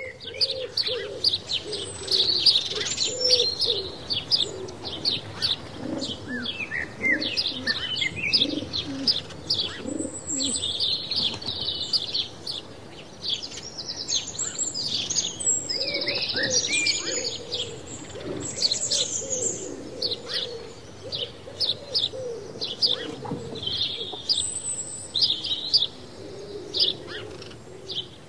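Songbirds chirping and twittering continuously in many short, high calls, with doves cooing in lower repeated notes underneath.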